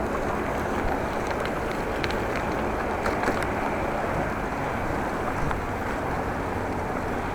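Steady rushing wind noise on the microphone of a bicycle-mounted action camera, mixed with road noise from the moving bicycle, with a few faint ticks.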